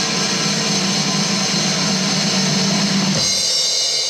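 Loud recorded music with drums and guitar. Its low part drops out about three seconds in.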